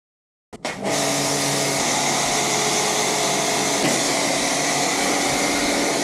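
Electric pressure washer running with a steady motor hum and the hiss of its snow-foam spray, starting abruptly about half a second in.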